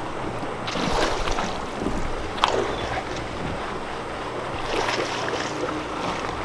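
Water splashing in several bursts as a hooked bass thrashes at the surface by the dock, with wind noise on the microphone.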